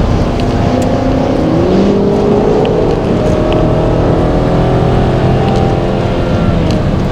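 Car engine running under way, with road and tyre rumble. About two seconds in it pulls up in revs, then holds steady.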